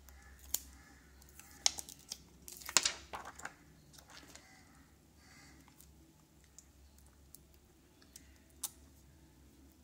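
Hands handling a smartphone and its plastic wrapping: scattered light clicks and taps, bunched together around two to three seconds in, with one more click near the end.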